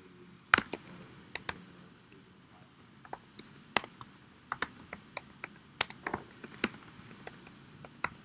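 Typing on a computer keyboard: irregular keystrokes, some louder than others, with short pauses between bursts; the loudest key strike comes about half a second in.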